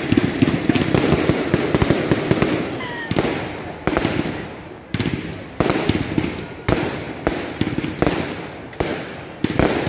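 Aerial fireworks going off: a dense crackle for the first three seconds or so, then a run of sharp bangs about one a second, each dying away briefly.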